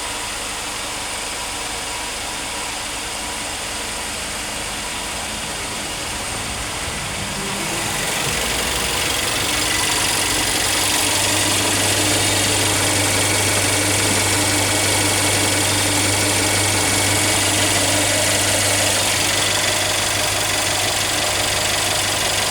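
Mercedes-Benz A200's 1.6 turbo engine idling hot, near its fan switch-on temperature. About eight seconds in the overall noise grows louder and stays up, and a few seconds later a steady low hum joins it.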